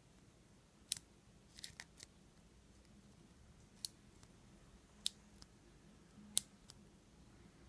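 Sharp, short metallic clicks from a Master Lock bike lock being handled while its pins are checked. There are about six of them, spaced a second or more apart, with a small cluster near the start.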